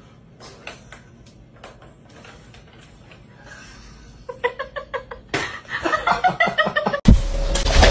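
Faint plastic clicks and taps as cats knock a ball-track toy about, then, about halfway through, a person bursts into hard, rapid laughter. Just before the end the sound cuts abruptly to a louder, noisy scene.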